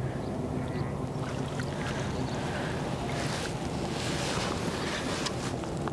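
Wind rushing over the microphone above a steady low drone, with a few light clicks and taps scattered through.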